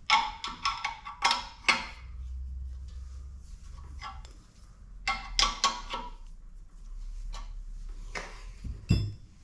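Metal tools and engine parts clinking and clanking during an engine teardown: two quick clusters of sharp, ringing metal knocks, one at the start and one about five seconds in, then a single heavier thump near the end.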